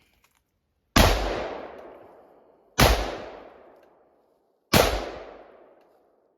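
Three gunshots about two seconds apart, each a sharp crack followed by a long echoing tail that fades away.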